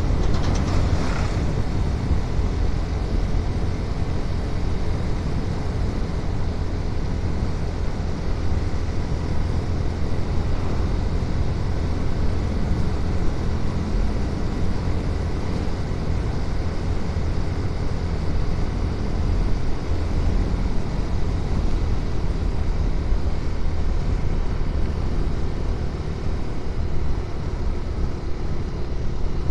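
Motorcycle riding steadily on an open road, heard from the bike: a constant low rumble of engine and wind on the microphone. A short louder rush in the first second or two comes as a tractor trolley is passed.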